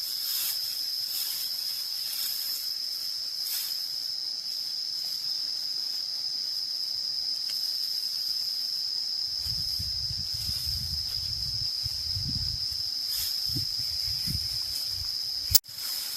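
A steady, high-pitched chorus of insects shrilling without a break. Low rumbling comes in over it from about halfway through, and there is a single sharp click near the end.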